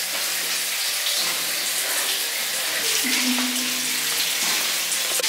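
Running water hissing and splashing in a tiled shower as a dog is bathed and lathered. A brief whine sounds about three seconds in.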